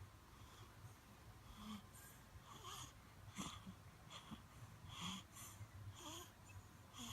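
A pet fish making faint snore-like sounds: a string of short squeaks, irregularly spaced about once a second.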